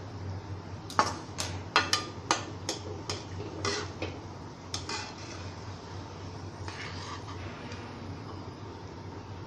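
Metal spoon clinking and scraping against a frying pan while golden-fried onions are pressed against the side to drain the oil and lifted out: about ten sharp clinks over the first few seconds, then softer scraping.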